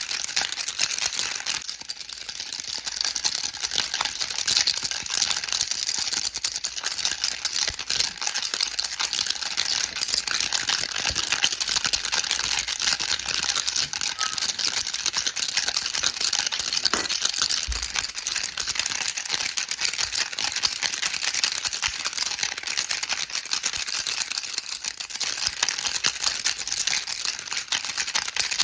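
Baby rattle shaken continuously: a dense, steady stream of small bead clicks.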